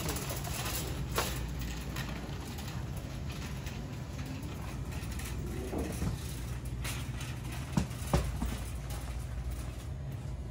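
A shopping cart being wheeled across a store floor: a low steady rumble with a few light knocks and rattles.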